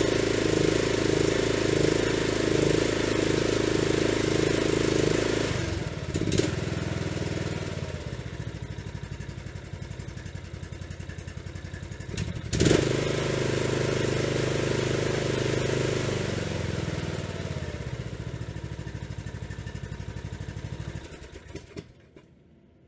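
Briggs & Stratton 15.5 hp engine of a Troy-Bilt Pony riding lawn tractor running smoothly on its freshly cleaned carburetor. It runs fast, is throttled down to a steady idle about six seconds in, is revved back up with a click about twelve seconds in, drops to idle again at about sixteen seconds, and shuts off near the end.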